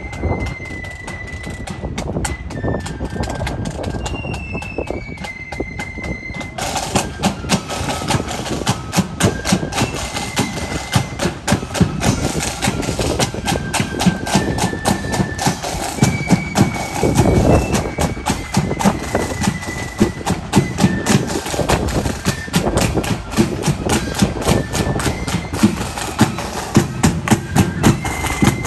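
Marching band music from a parade band: a high, single-line flute melody moving in steps over drum beats. The drumming becomes dense and steady about six and a half seconds in.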